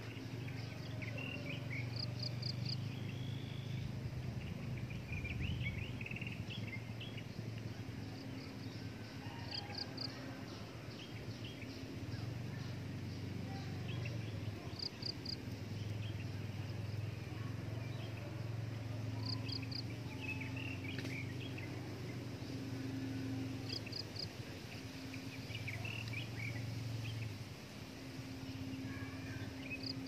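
Outdoor tree-canopy ambience: scattered short bird chirps, and a brief high three- or four-pulse call that repeats about every five seconds, over a low hum that comes and goes.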